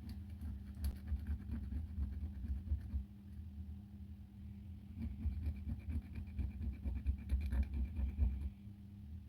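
Small power tool motor running steadily with irregular scraping and clicking. A thin, higher whine comes in about halfway through and stops shortly before the end.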